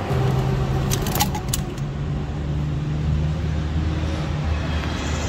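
Steady low mechanical hum, with a few light metal clinks about a second in as parts are handled in the engine bay.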